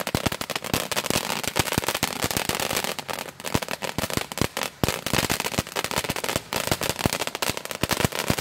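Ground fountain firework crackling continuously, a dense, rapid run of sharp pops.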